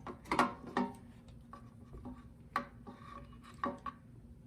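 Light metallic clicks and knocks as a small engine's carburetor is tilted and twisted free of its throttle linkages and springs: a quick cluster in the first second, then single knocks about two and a half and three and a half seconds in.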